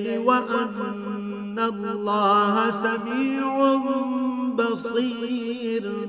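A man reciting the Quran in Arabic in a melodic chanting style, holding long sustained notes with ornamented turns between them.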